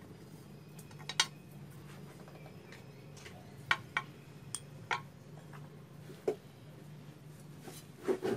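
Light clicks and clinks of a kitchen knife and steel kitchen scissors being handled and set down on a hard tabletop, about seven sharp ticks spread out, the sharpest about a second in.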